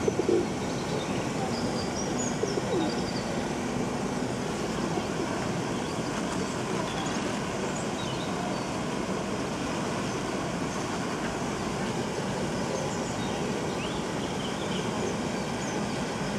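Steady rushing outdoor noise at an even level, with faint short high bird chirps here and there and a few brief knocks in the first few seconds.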